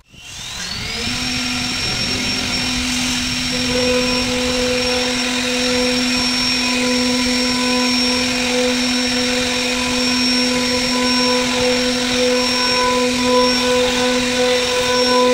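CNC router spindle running, its bit carving a wooden door panel. It rises in pitch over about the first second, then holds a steady whine.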